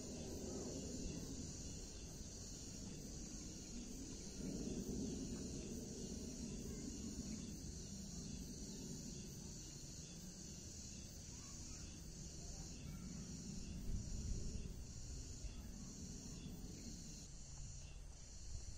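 Insect chorus: a steady high buzz that pulses a little more than once a second in the second half, over a low outdoor hum.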